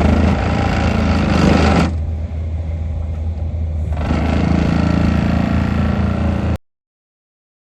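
Excavator-mounted hydraulic vibratory plate compactor running against the soil together with the excavator's engine: a steady low hum with harsher, louder stretches that swell and ease back. The sound cuts off abruptly about six and a half seconds in.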